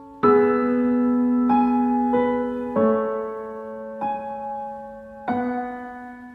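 Slow, soft piano music: sustained chords struck every one to one and a half seconds, each fading before the next.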